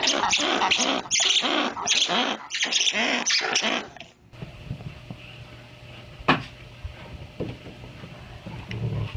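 A pet animal calls out in a rapid, loud run of bending vocal calls. It cuts off about four seconds in and a quiet stretch follows, with a low hum and a single sharp knock about two seconds later.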